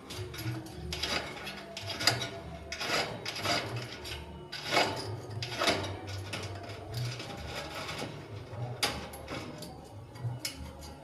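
Lovebird's beak cracking and gnawing at corn: a run of irregular sharp clicks and scrapes, several a second.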